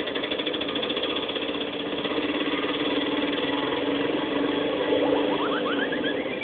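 Small engine idling steadily, with a fast rattling pulse over a held low hum.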